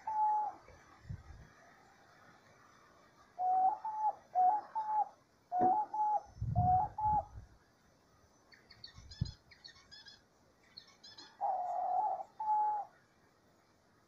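Diamond dove cooing: short coos in runs of two to four, each note ending with a small upward step in pitch, with pauses between the runs. Faint high chirps of a small bird come in about halfway through.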